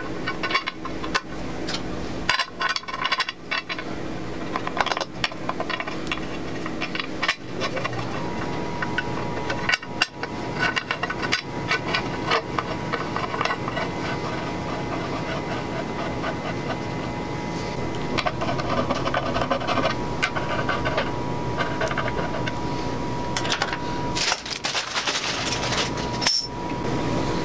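Hand work on an LS V8 engine's front cover: rubbing and scraping with many light metal clicks and knocks as the cast aluminium cover and balancer are worked into place and bolts are started. A faint steady tone joins about eight seconds in.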